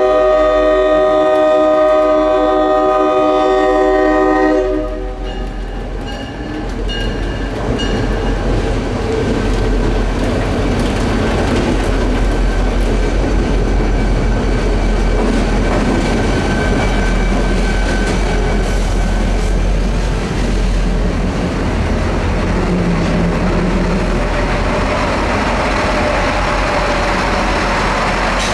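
NJ Transit GP40PH-2 diesel locomotive sounding its multi-note air horn, which cuts off about five seconds in. Then the locomotive and its train roll slowly past at close range, with steady engine rumble and wheels clicking over the rail joints.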